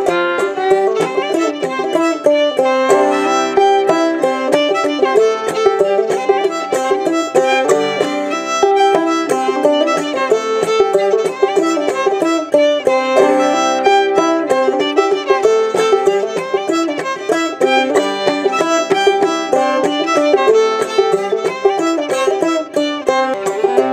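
Fiddle and clawhammer banjo playing an old-time fiddle tune together: the bowed fiddle carries the melody over the banjo's quick, steady frailing.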